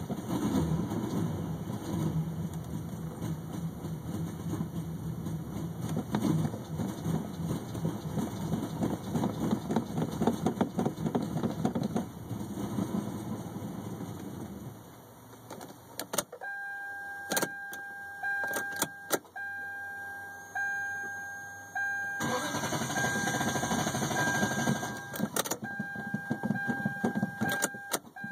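1998 Lexus LS400's 1UZ V8 turning over on the starter in a long attempt that stops about 15 seconds in, then a second attempt starting about 22 seconds in; the car is not starting, the fault the owner is still chasing. From about 16 seconds in, after a click, a repeating electronic warning chime from the car beeps steadily, with a few more clicks.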